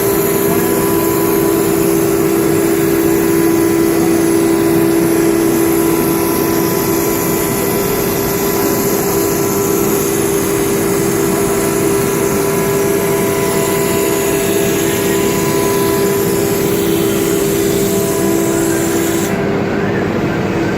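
CNC router running, its spindle giving a steady whine over a mechanical hiss; near the end part of the whine and the hiss drop away.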